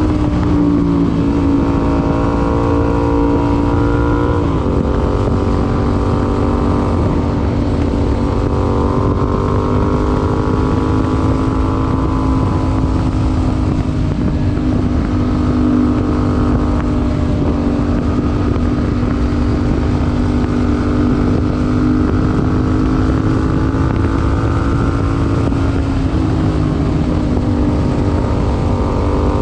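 Yamaha MT-07's parallel-twin engine, breathing through an IXIL IXRACE MK2 aftermarket exhaust, running under way at a fairly steady speed. The engine note drops about four seconds in, then holds nearly steady with slow small rises and falls.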